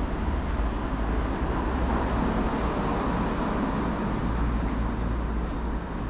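Steady low rumble of passing road traffic with an even hiss over it, no single sound standing out.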